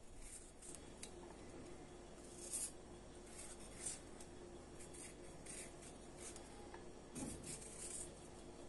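Fresh ginger root being peeled thinly by hand: faint, irregular scraping strokes on the skin.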